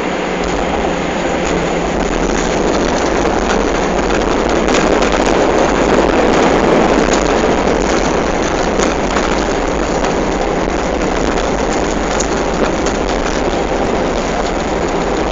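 Airliner cabin noise during the landing: a steady rushing roar of engines and airflow, swelling somewhat in the middle, with a few light clicks and rattles.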